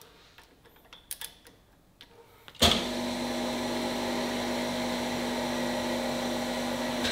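A few light clicks, then a crankshaft grinding machine's workhead drive is switched on by push-button about two and a half seconds in. It turns the clamped crankshaft with a steady hum and is switched off near the end, winding down. The crankshaft is being spun to check its runout on a dial gauge while it is trued in the chuck.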